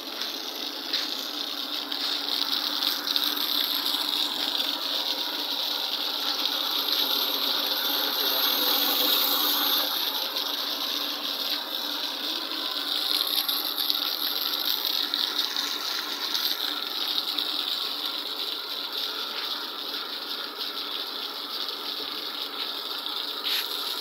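Tanker truck's rear pump unit running with a steady mechanical rattle, mixed with the hiss of a liquid jet spraying out of the pump cabinet onto wet concrete.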